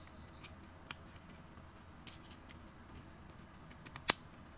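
Fingers pressing a freshly fitted keycap onto its scissor mechanism on a Lenovo ThinkPad Yoga 260 laptop keyboard. A few faint plastic clicks, then one sharp, much louder click about four seconds in.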